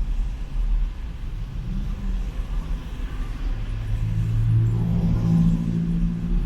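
City street traffic: a car's engine hum comes in about halfway through and holds steady over a constant low rumble of traffic.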